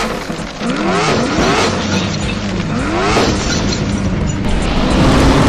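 A car engine revving up in three rising sweeps, over music.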